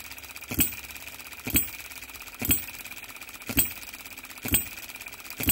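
OKMO B01 model Baker Ball Top Monitor hit-and-miss engine, a 3.6cc single-cylinder four-stroke gasoline engine, running. It fires with a sharp pop about once a second, six times, and coasts on its flywheels between firings with a faint rapid ticking.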